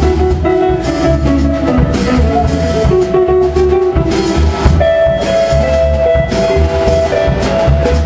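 Live jazz-funk band playing a groove: drum kit with cymbals, a pulsing bass line, electric guitar, and a lead line of long held notes.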